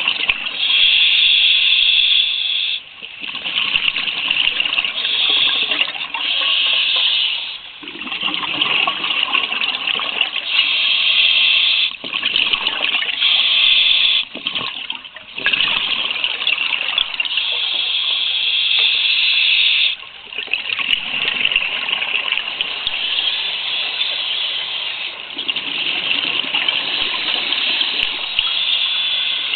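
Scuba diver's breathing heard underwater: exhaled air bubbling out of the regulator in loud gushing stretches of a few seconds, broken by short quieter pauses while inhaling, about seven breaths in all.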